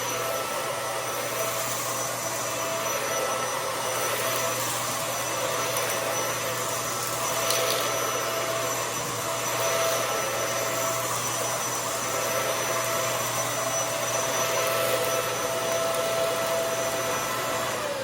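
Hoover Air Lift upright vacuum cleaner running steadily with a whine over its airflow noise. The owner is unsure whether this sound means trouble, having heard brand-new ones sound the same. At the very end it is switched off and starts to wind down.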